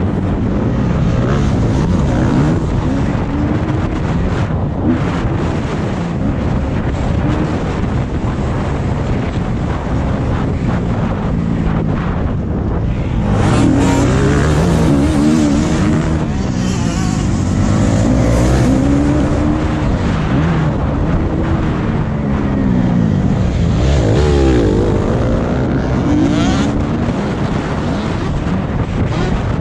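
Off-road motocross motorcycle engine being ridden hard, its pitch rising and falling again and again as the throttle opens and closes through the gears, over a steady rush of noise.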